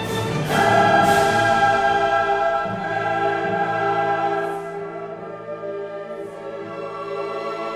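Background classical music: a choir and orchestra holding sustained chords, swelling about a second in and growing softer after about four and a half seconds.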